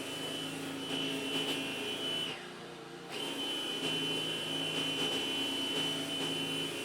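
An electric motor-driven machine running with a steady high whine. It winds down and stops for under a second about two and a half seconds in, then starts up again.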